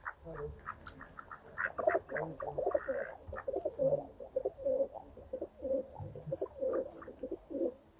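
Feral pigeons cooing over and over in short low coos, with light clicks mixed in.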